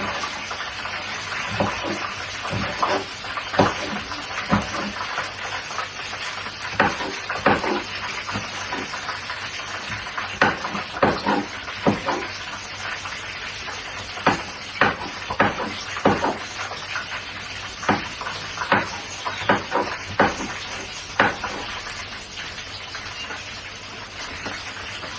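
Fish frying in hot oil, a steady sizzle throughout, with irregular sharp knocks of a knife chopping green pepper on a board.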